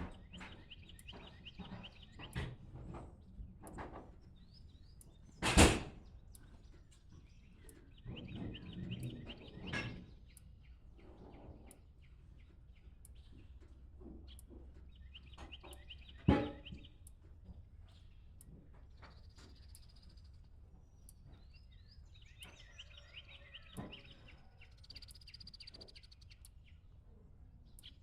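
Birds singing in short, rapid trilled phrases that repeat every several seconds. Two loud knocks come about five and a half seconds in and again about sixteen seconds in.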